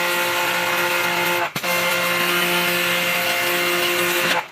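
Small electric motor whining at a steady pitch, typical of a power tool such as a drill, with a brief stop about a second and a half in before it starts again; it cuts off just before the end.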